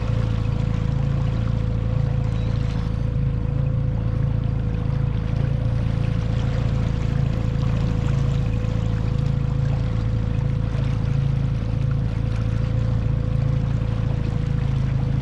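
Boat's outboard motor running steadily at trolling speed: a deep, even hum with a steady higher tone over it, and water rushing past the hull.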